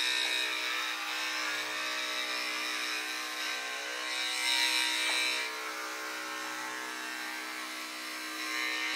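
Corded electric dog grooming clippers, fitted with a 30 blade and guard comb, running steadily as they are drawn down a goldendoodle's back: an even motor hum that swells slightly for about a second midway as the blade cuts through the coat.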